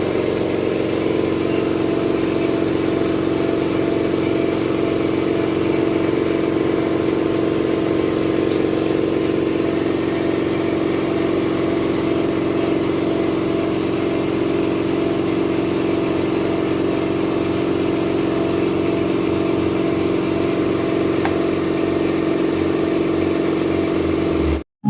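Vapor blasting machine running steadily: a constant machine hum under an even spray hiss. It cuts off suddenly near the end.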